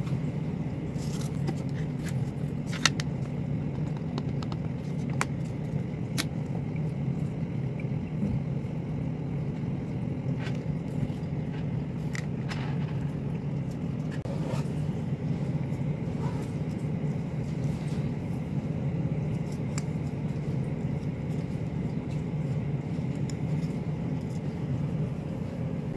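Steady low background hum, with scattered light clicks and taps as a clear acrylic stamping block is handled and pressed onto card on a cutting mat.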